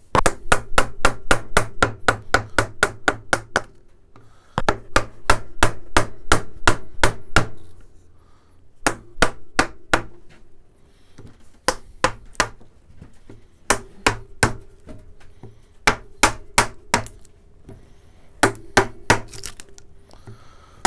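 Wooden mallet tapping the handle of a carving gouge as it cuts through a block of alder against the grain: light, quick taps at about three to four a second in two dense runs broken by short pauses around four and eight seconds in, then sparser taps.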